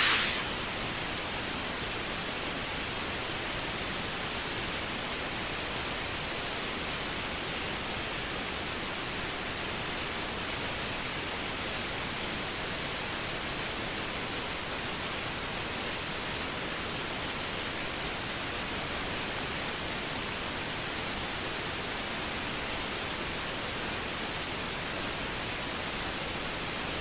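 CUT50 Tenya air plasma cutter cutting stainless steel plate: a steady, even high hiss of the plasma arc and air jet, a little louder for the first half second before it settles.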